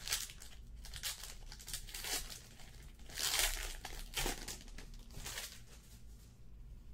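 Wrapper of a baseball-card pack crinkling and tearing as it is ripped open by hand, in a run of short rustling bursts, the loudest about three seconds in, then quieter handling of the cards near the end.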